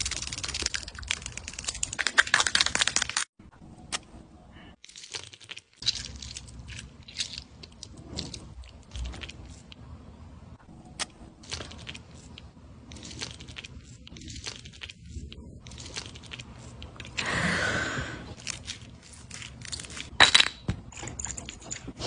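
Close-up handling sounds of a mock skincare routine. It opens with about three seconds of toothbrush scrubbing at the mouth, which cuts off suddenly. Then come scattered small clicks, taps and rustles from handling plastic toy items and a face mask, with a louder rustling stretch near the end.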